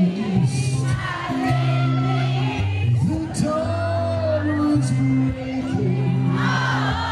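Live band music, heard from within the crowd, with the audience singing along.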